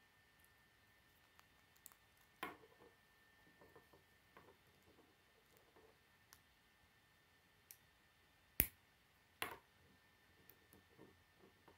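Plastic K'nex pieces clicking and snapping together under the fingers as a model is assembled, with wheels pressed onto axles: scattered faint clicks and rattles, with a sharp snap about two and a half seconds in, the loudest snap about eight and a half seconds in, and another a second later.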